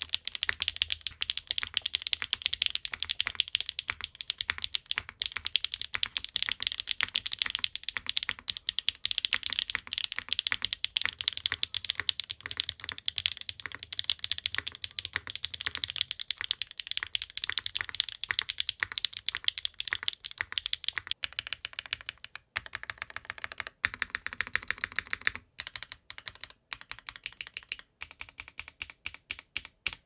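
Continuous fast typing on a Qwertykeys Neo80 tenkeyless mechanical keyboard with HMX Cloud linear switches and GMK Hennessy keycaps, built with no foam: a dense run of keystroke clacks. The board is heard in different mounts, plateless with gasket socks and then an FR4 plate with gasket socks, and the keystrokes thin out with short gaps near the end.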